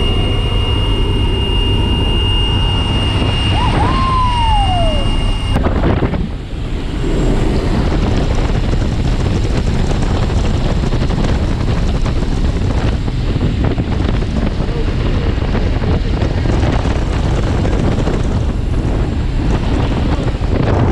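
Steady drone of the Pilatus Porter's engine and rushing air inside the aircraft cabin in flight, with a short falling whistle about four seconds in.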